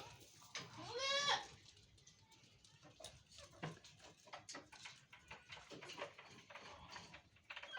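A goat bleats once about a second in, a single quavering call lasting under a second, followed by faint scattered knocks and rustles.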